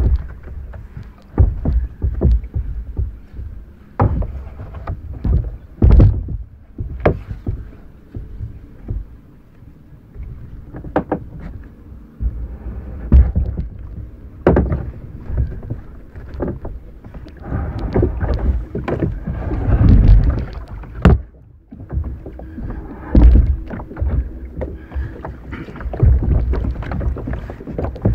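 Irregular knocks, thumps and rubbing on a plastic sit-on-top kayak hull as a paddle and gear are handled on it and the paddler climbs aboard, picked up through the hull by a camera mounted on the deck.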